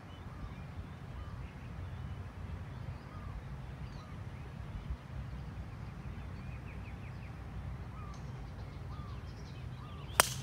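Low wind rumble on the microphone with scattered short bird calls, then about ten seconds in a single sharp crack of a golf club striking the ball on a tee shot.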